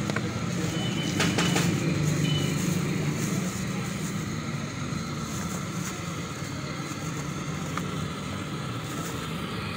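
Steady roadside traffic noise with vehicle engines running, and a plastic bag crinkling about a second in as a takeaway order is bagged.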